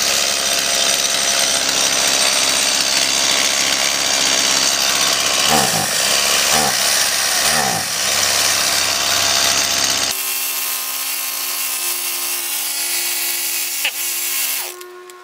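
Stihl MS170 chainsaw's small two-stroke engine running, with a few throttle blips about halfway through where the pitch rises and falls, then stopping near the end. It is still bogging down with the same fuel-delivery fault a carburetor cleaning has not cured; the owner suspects a blockage in the carburetor.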